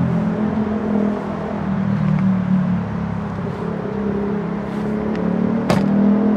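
Class 450 Desiro electric multiple unit running slowly through the junction: a steady low hum with a single sharp click near the end.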